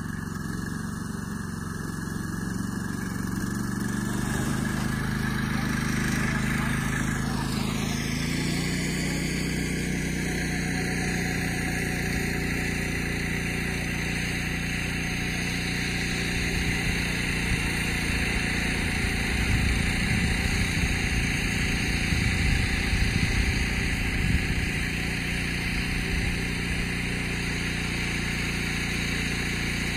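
A paraglider tow machine's engine runs steadily and grows louder as the tow gets under way. A whine falls in pitch between about six and twelve seconds in. Wind buffets the microphone in the second half.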